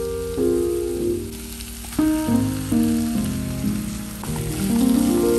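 Chopped capsicum, green peas and tomato sizzling in an oiled steel pan as they are stirred with a wooden spatula, under background music of held notes that change every fraction of a second.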